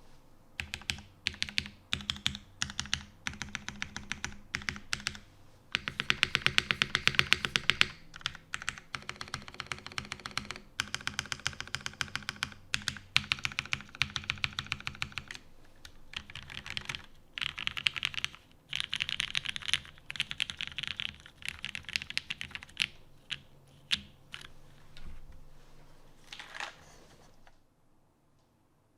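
Typing on a custom mechanical keyboard with lubed Cherry MX Black linear switches in an aluminium plate and GMK keycaps, keystrokes in uneven runs with a fast burst of rapid keys several seconds in. The typing stops shortly before the end.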